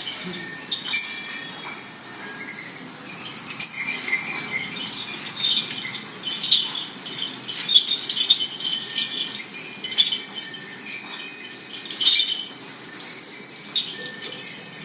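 Small metal bells jingling and tinkling irregularly, over a steady high-pitched tone.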